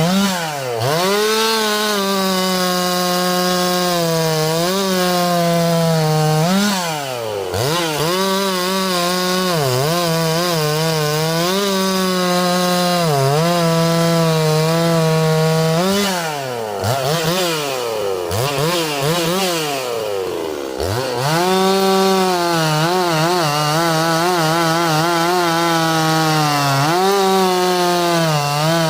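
Holzfforma G366 two-stroke chainsaw running at high revs under load while cutting wood. The engine note holds steady in the cut, then several times drops and climbs back as the throttle comes off and on between cuts.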